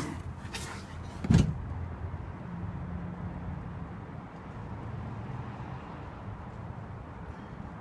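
Handling noise from a phone camera being lowered under a car: a few clicks and one loud knock about a second and a half in, then a low, steady rumble.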